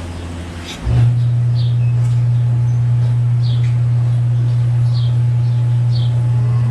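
A loud, steady low machine hum switches on suddenly about a second in, with birds chirping over it in short, repeated calls.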